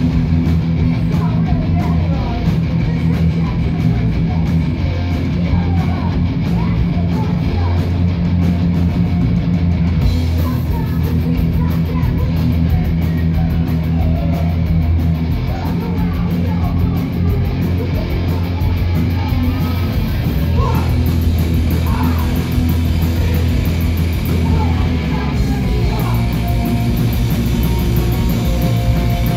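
Punk rock band playing live: electric guitars, bass and drum kit, with shouted vocals into microphones.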